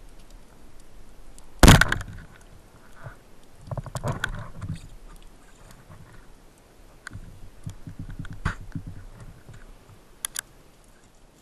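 Wooden band-powered speargun (Matador Fuoco) firing underwater, a single sharp crack about two seconds in. It is followed by scattered clicks and runs of rapid low knocks, the shaft and line rattling as the speared fish struggles.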